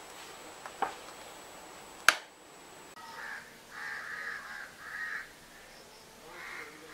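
A sharp click about two seconds in, then crows cawing in several short bouts of harsh calls.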